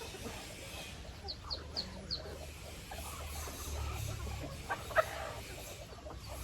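Chickens clucking at feeding. A quick run of four short high peeps comes about a second in, and a single louder squawk comes near the end.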